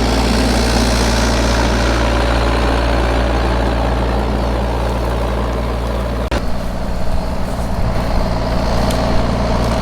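Excavator's diesel engine running steadily as the machine travels. There is a single knock about six seconds in.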